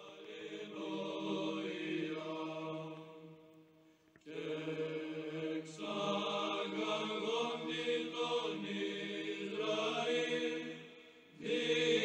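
Sung church chant: voices hold slow, sustained notes over a steady low drone. It swells in from quiet, breaks off about four seconds in, then resumes and dips briefly near the end.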